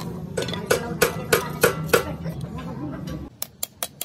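A steady hum under a run of ringing metal strikes. About three seconds in, the hum cuts off and quick light hammer taps on a small piece of metal follow, several a second.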